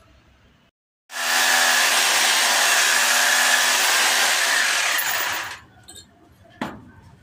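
Handheld electric drill running and boring into the door frame, starting about a second in and stopping after about four and a half seconds. A single sharp knock follows near the end.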